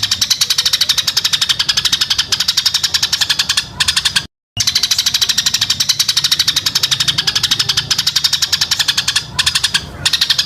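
Recorded isian song for training white-rumped shamas: a rapid, rattling trill of high chirping pulses, more than a dozen a second, in long phrases. The recording cuts to dead silence for a moment about four seconds in.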